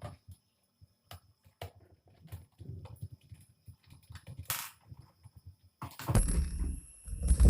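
Scattered small clicks and knocks of hands working on the rework station's casing to open it up, with louder low rumbling and knocking of handling starting about six seconds in.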